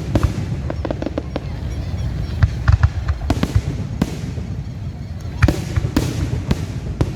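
Fireworks going off: a rapid string of sharp bangs and cracks with echoing booms, in bunches about 2.5 to 3 seconds in and again about 5.5 to 6 seconds in, over a steady low rumble.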